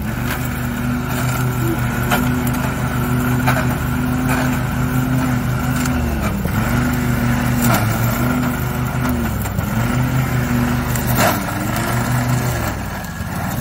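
Riding lawn mower's engine running under heavy load as its blades cut through brush and saplings. The engine pitch sags and recovers several times, with sharp snaps of woody growth hitting the deck, the loudest one near the end.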